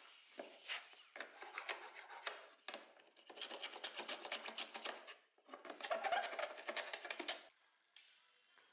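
Wooden marking gauge drawn along the edge of an oak strip, its steel pin or blade scratching and scoring the wood in several short passes, the loudest near the end.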